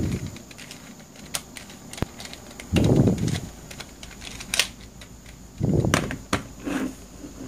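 Plastic Pyrastar (Wolf Cube) puzzle being turned by hand: its layers scrape and grind through several short turns, the longest about three and six seconds in, with sharp plastic clicks in between.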